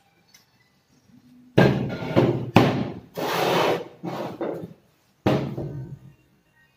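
Heavy cast-metal power tiller fan housing set down and shifted on a wooden workbench: several loud knocks, some ringing briefly, and a scrape in the middle, then another knock near the end as tools are laid down.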